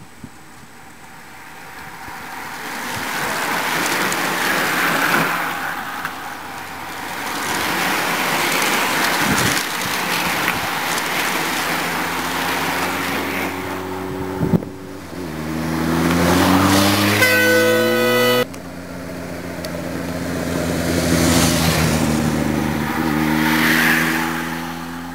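A bunch of racing bicycles passing close by, a rush of tyre noise that swells and fades. Then the motor vehicles following the race pass with engines rising in pitch. The sound cuts off abruptly about three-quarters of the way through and picks up on another passing vehicle engine.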